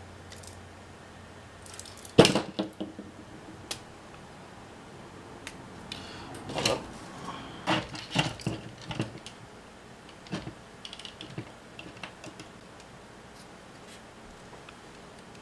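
Clicks and clatter of a small metal camcorder tape mechanism being handled and worked with a screwdriver. The sharpest knock comes about two seconds in, with a run of clacks a few seconds later and a few light ticks after.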